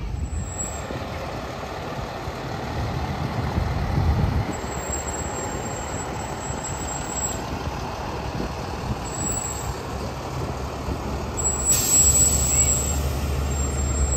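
Fire trucks driving slowly past, engines running with road noise. Near the end a big truck gives a short hiss as it comes to a stop, then its engine idles with a steady low hum.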